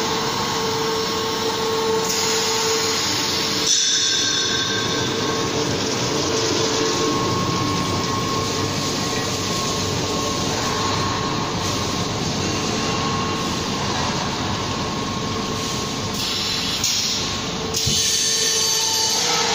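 Reciprocating paper-pulp egg tray moulding machine running: a steady mechanical din with a constant hum, and bursts of higher hiss about two seconds in and again near the end.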